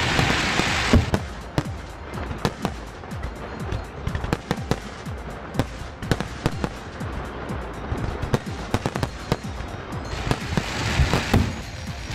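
Fireworks going off: an uneven string of sharp bangs and pops, with a dense fizzing crackle at the start and again near the end.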